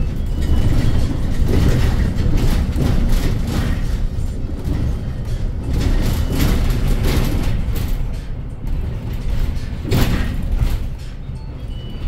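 Cabin noise of a 2019 Hyundai Elec City electric bus under way: a steady low rumble of tyres and road with scattered knocks from the body and fittings, and a sharp jolt about ten seconds in, as over a bump.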